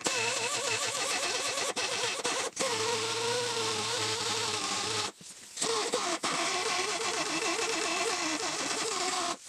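Die grinder with a pointed carbide burr grinding into cast iron, its whine wavering in pitch as the burr loads and unloads, with a few short breaks. The burr is hogging out a V-groove along a crack in a broken cast-iron lathe handle to prepare it for brazing.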